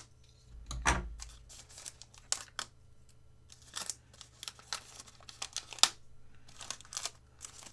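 A product wrapper being torn open and crinkled by hand in a string of irregular crackles, with a dull thump about a second in.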